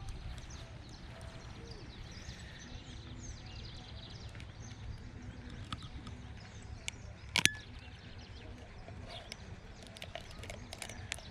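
Birds chirping and calling over a steady low rumble, with a few sharp clicks, the loudest about seven seconds in.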